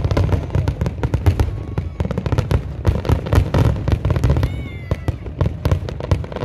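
Aerial fireworks display: many shells bursting at once in a dense run of overlapping cracks and bangs, thinning out near the end.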